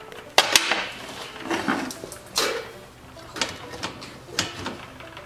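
Metal clanks and knocks, irregular and a handful of them, from working on a snowblower's steel track drive frame with its rubber tracks and chain sprockets.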